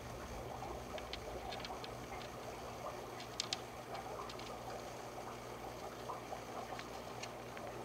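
A Djungarian hamster eating among wood shavings: soft rustling with scattered small, crisp clicks, two sharper ones about three and a half seconds in, over a steady low hum.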